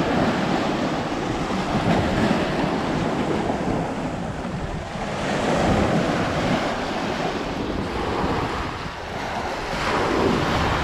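Small waves breaking and washing up the sand at the water's edge, swelling and easing every few seconds, with wind rumbling on the microphone.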